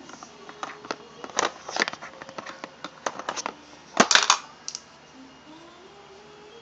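Small makeup items being handled, clicking and clattering in a quick irregular run, with a louder cluster of clicks about four seconds in.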